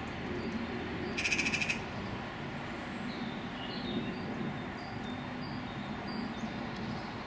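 A short, harsh rattling bird call, about half a second long, a little over a second in, with faint high chirps of small birds after it, over a steady low outdoor rumble.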